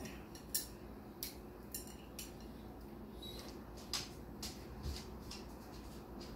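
Chopsticks clicking against a ceramic bowl while picking up food: a handful of light, irregular clicks.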